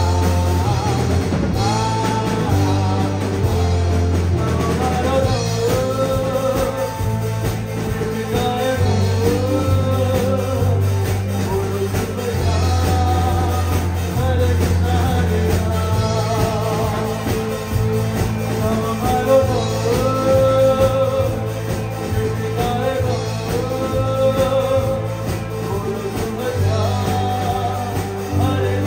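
Live band playing a song: a male singer amplified through a microphone, over electric guitar and keyboard, with a steady low bass line underneath.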